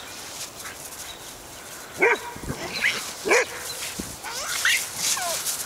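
Dog barking during play: loud, short barks about two seconds in and again a second later, with quieter higher yips near the end.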